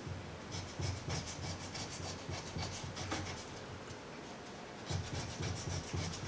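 A coin scratching the coating off a scratch-off lottery ticket in quick, repeated scraping strokes, easing off for about a second a little after the middle before starting again.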